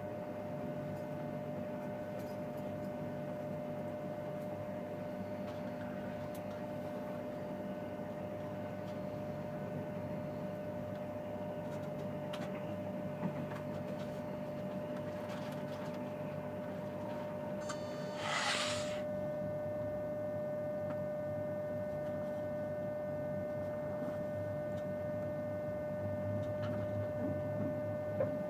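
Steady hum and rumble inside a TGV high-speed train carriage running at speed, with a steady whine from the train's equipment. About two-thirds of the way through, a short rushing burst lasts under a second. Near the end the rumble grows heavier, with a few small knocks.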